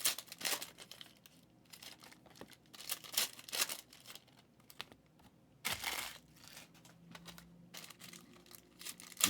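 Packaging from trading-card packs being crinkled and torn open in irregular rustling bursts.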